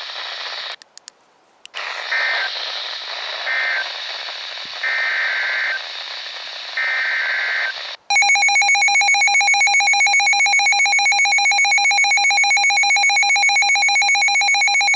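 NOAA Weather Radio receiver hissing with static, cutting out briefly, then squawking the short warbling bursts of an EAS SAME data header, followed by the loud, harsh, steady Emergency Alert System attention tone as the alert goes off.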